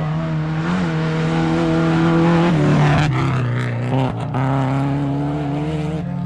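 Rally car engine at high revs passing at speed, loudest about two and a half seconds in, where the pitch drops, followed by a few brief cuts in the engine note before it pulls on again.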